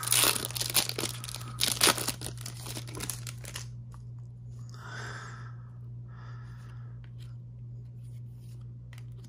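A trading card pack's wrapper being torn open and crinkled, a dense crackle for about the first three and a half seconds. Then two soft swishes as the cards are handled, over a steady low hum.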